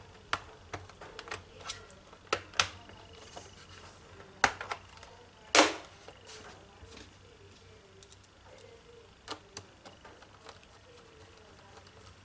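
Irregular plastic clicks and knocks as the laptop's hard disk and RAM compartment door is handled and pressed into place on the underside of the case. The loudest knocks come about two and a half and four and a half seconds in, and about five and a half seconds in; smaller ticks follow.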